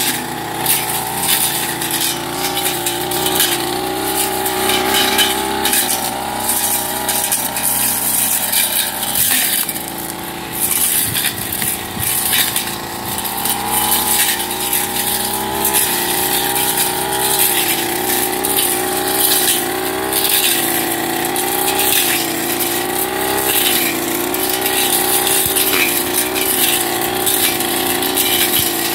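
Backpack two-stroke brush cutter running at working speed, its engine note wavering as the throttle is worked while the blade cuts through weeds and undergrowth with a constant rattle and ticking. The engine eases off briefly about ten seconds in, then picks up again.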